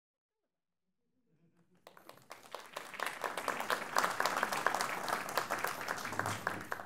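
Audience applauding: the clapping starts about a second and a half in, swells to a full round of applause and dies away near the end.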